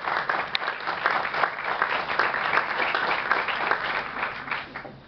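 Audience and panel applauding with dense, steady hand-clapping that dies away near the end.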